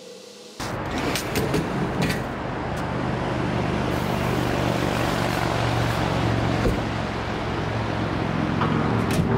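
Steady vehicle and road-traffic noise with a low engine hum. It starts suddenly about half a second in and slowly grows louder, with a few sharp clicks and knocks in the first couple of seconds.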